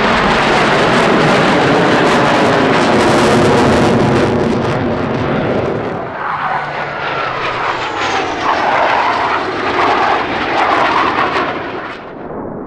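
Blue Angels F/A-18 Hornet jets flying low overhead in formation, their engines loud, with a falling pitch as they pass. About six seconds in the noise dips, then swells again with whining tones as more jets go by, easing off near the end.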